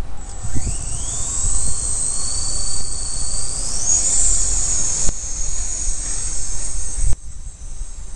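V120 micro RC helicopter's electric motors spooling up with a steeply rising whine about half a second in, then running at a steady high whine that shifts in pitch a few times, over low wind rumble. The sound stops abruptly about seven seconds in.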